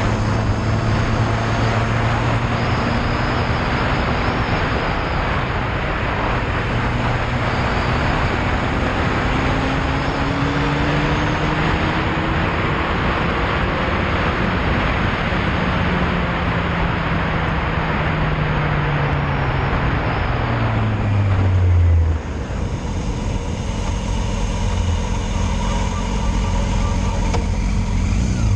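Yamaha Fazer motorcycle at riding speed, with heavy wind rush over the microphone. The engine note falls steadily as the bike slows, and about 22 seconds in the wind noise drops off sharply, leaving the engine running at low revs.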